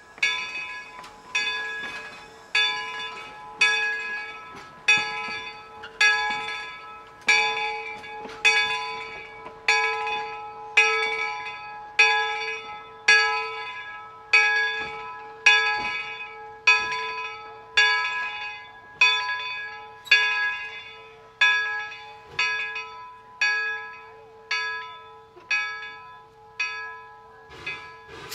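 A steam locomotive's bell ringing steadily as the 4-4-0 locomotive moves slowly along the track, about one strike every 1.2 seconds, each left to ring on. Near the end the strikes come a little quicker and fade before stopping.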